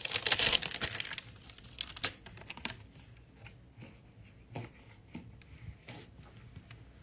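Crinkling, rustling handling noise close to a phone's microphone, dense for about the first second, then thinning to scattered light clicks as a small bottle is handled.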